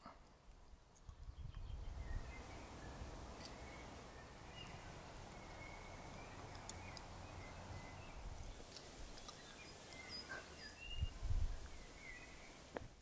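Forest ambience: scattered short bird chirps over a steady rushing background hiss, with a brief low rumble about eleven seconds in.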